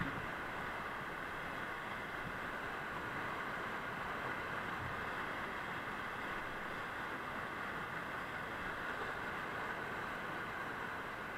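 Whitewater rapids rushing, a steady unbroken noise of churning river water.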